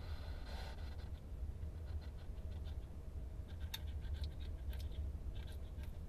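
Hedgehog shuffling right against the microphone: a scatter of light scratches and clicks, mostly from about two seconds in, over a steady low hum.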